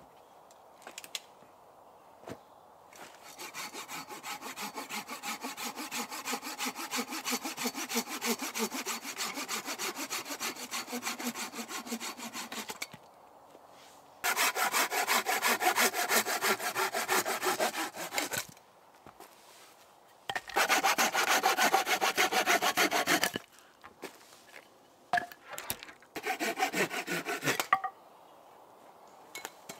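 Hand pruning saw cutting through dead wood with quick, even back-and-forth strokes. There is a longer, quieter spell of sawing, then two loud bouts and a short one near the end, with a few knocks of wood between them.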